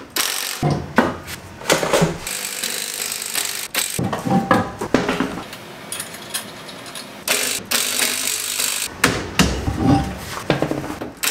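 Garage work on a car's wheels and brakes: scattered knocks and clunks of tools and metal parts.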